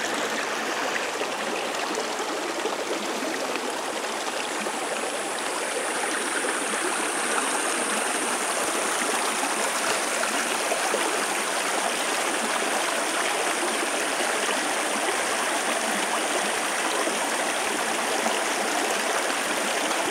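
Creek water running steadily over rocks and between shallow rock pools.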